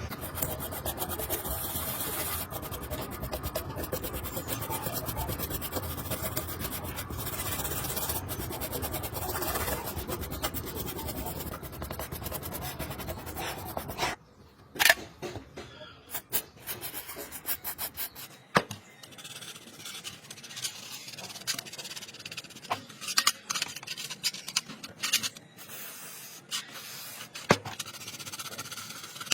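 Steady rubbing and rasping, like sanding or filing a smartwatch case by hand. It stops suddenly about halfway through and gives way to quieter scattered clicks, taps and short scratches of small parts and tools being handled.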